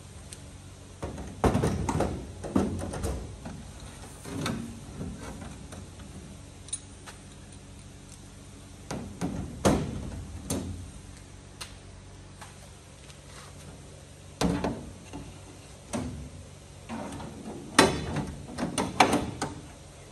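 Thin aluminium aircraft sheet-metal parts being handled and fitted against the fuselage: irregular clusters of knocks, taps and metallic clatter, with a steady low hum underneath.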